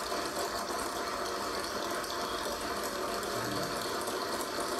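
A crowd applauding with steady clapping, heard through a television's speaker.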